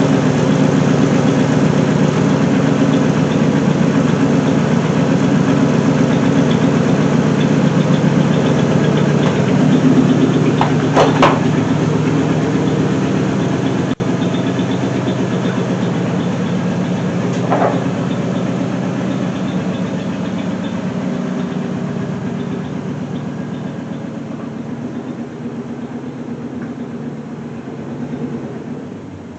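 2012 Mustang GT's 5.0 L V8 idling steadily on new coil packs, running smoothly with no misfire to be heard at idle. Two short, higher-pitched chirps come partway through, and the engine sound eases off gradually toward the end.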